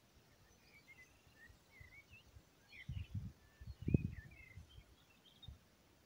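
Small birds chirping and twittering in short scattered calls, with low gusts of wind buffeting the microphone, strongest about three and four seconds in.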